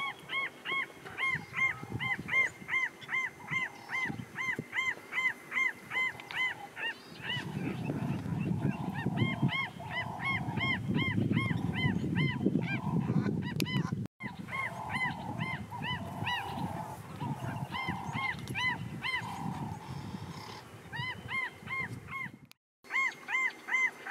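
An animal repeating short honking calls over and over, about two to three a second. From about a quarter of the way in to near the end, a low, rough rumbling noise runs underneath. The sound cuts out for a moment twice.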